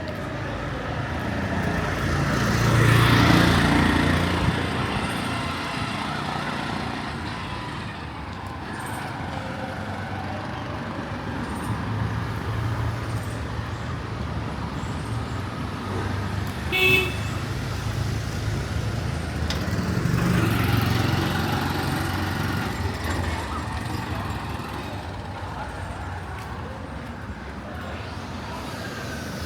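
City street traffic, with vehicles passing close by about three seconds in and again around twenty seconds in, and a short horn toot a little before the second pass.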